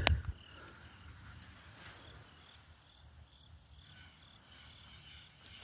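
Insects chirping in a faint steady chorus, with scattered short high chirps and a single click right at the start.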